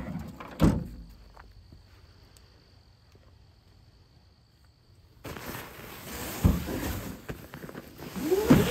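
A thump about a second in, then from about five seconds rustling, scraping and knocks of canvas duffel bags being handled and pulled across a pickup truck's ribbed plastic bed liner, with short squeaks of fabric rubbing on the liner near the end.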